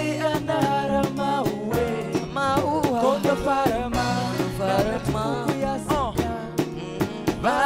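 Live Afropop band playing: a male lead vocal sung into a handheld microphone over a drum kit keeping a steady beat, with bass guitar and keyboard.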